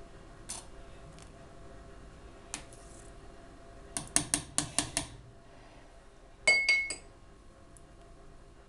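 A metal ladle clinking against a stainless steel pot: a few scattered taps, a quick run of about six taps past the middle, then a few clanks that ring on near the end.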